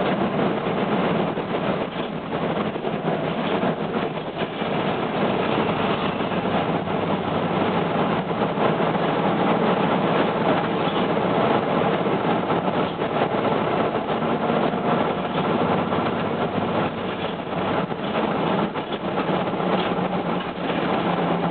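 Cabin sound aboard an Isuzu Erga Mio medium-duty city bus (PKG-LR234J2): the diesel engine and running noise carry on steadily, with small rises and falls in level.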